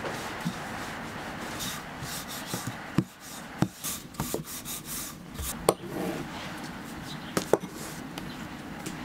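Dough being worked on a table: a steady rubbing for about three seconds, then scattered sharp clicks and knocks as a metal pizza-cutter wheel and a wooden rolling pin are handled on the tabletop.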